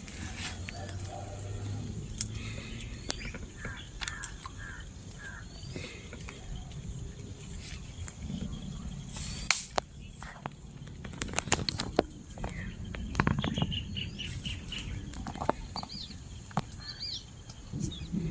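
Outdoor sounds: scattered knocks and clicks over a low rumble, with short, high bird chirps now and then.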